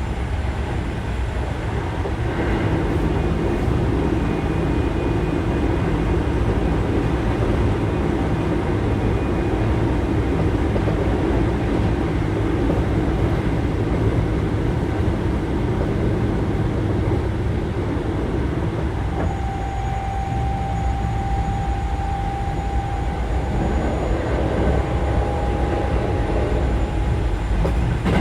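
Keio 7000 series electric train running, heard from inside the car: a steady rumble from the wheels and running gear. About two-thirds of the way through, a held whine from the traction equipment sets in and carries on for several seconds.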